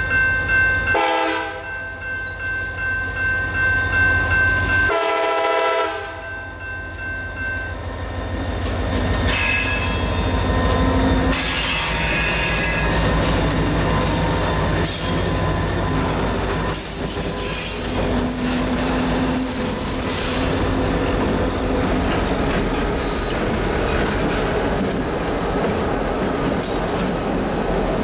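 Diesel freight locomotive sounding its horn while its engine throbs as it passes close by. About eight seconds in the horn stops and the rolling cars take over: wheels clattering over the rails with repeated high squeals.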